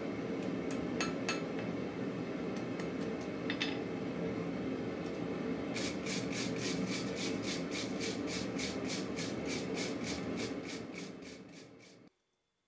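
A few light metallic clicks, then from about six seconds in a wire brush scrubbing the forged mild-steel bottle opener on the anvil face in quick strokes, about four a second. A steady rushing noise runs beneath and cuts off near the end.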